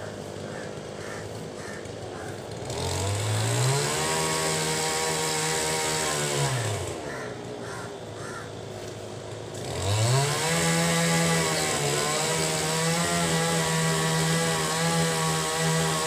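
A small engine revs up to a steady high speed, holds for about three seconds, winds down and stops, then revs up again about ten seconds in and keeps running.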